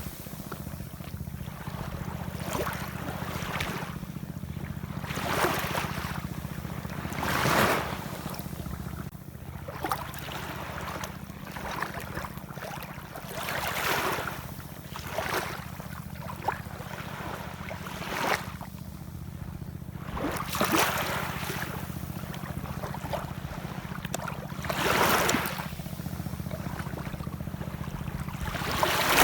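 Ocean waves washing in, one surge every few seconds over a steady low rumble.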